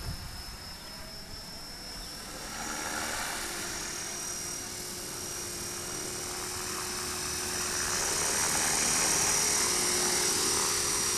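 Electric radio-controlled helicopter's motor and rotor whining, a steady high tone that grows louder as the helicopter comes down close to the ground.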